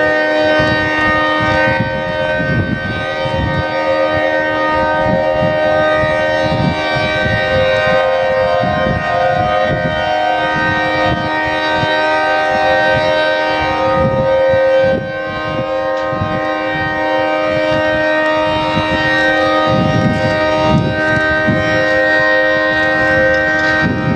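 Federal Signal 3T22 three-tone outdoor warning siren sounding its steady alert signal, a held chord-like tone at constant pitch with a brief dip in level about fifteen seconds in.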